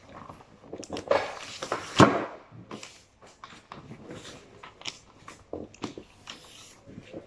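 Glossy wrapping paper rustling and crinkling as it is folded and pressed around a cardboard carton, with sharp crackles throughout and the loudest crinkling about one to two seconds in.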